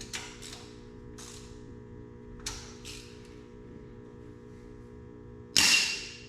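Hand tools on engine-bay bolts: a few short metallic clicks and scrapes, then one loud metal clank with a brief ring about five and a half seconds in, over a steady hum.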